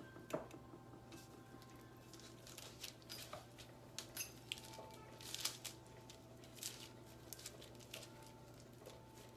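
Faint, scattered taps and clicks of utensils and food being handled at the kitchen counter while lasagna roll-ups are filled and rolled, with one slightly louder knock near the start, over a steady low hum.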